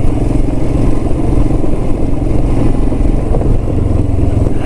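Royal Enfield Himalayan's single-cylinder engine running steadily as the motorcycle rides along, a dense low rumble.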